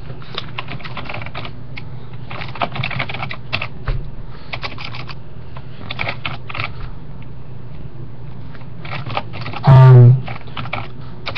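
Computer keyboard typing, with irregular runs of quick keystroke clicks. A short, loud burst of voice comes near the end.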